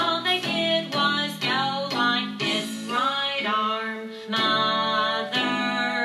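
A children's action song: a voice singing over guitar accompaniment.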